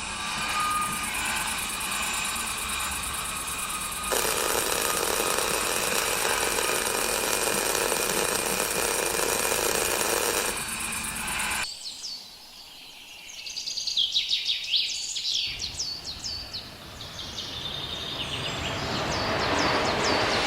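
Layered ambient sound effects: a steady noise bed with several held tones, louder from about four seconds in, that cuts off abruptly near the middle. Birds chirp in the quieter stretch that follows, then the noise builds up again toward the end.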